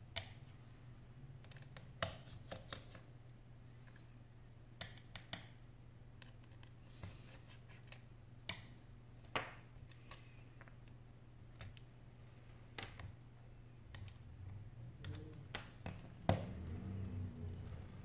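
Light, scattered clicks and taps of fingers and small metal parts on an opened iPhone 6's display shield plate and connector area, over a steady low hum. A rubbing handling noise builds over the last few seconds.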